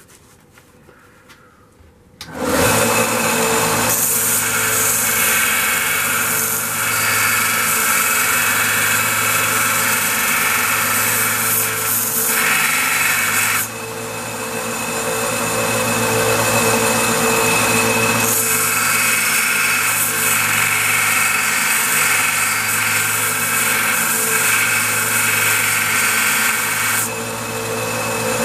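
A power grinder comes on about two seconds in and runs steadily with a constant hum while a stainless steel bolt is ground against it, giving a harsh grinding noise. The grinding noise drops away twice, about halfway through and near the end, while the motor keeps running and the hot bolt is dipped in water to cool.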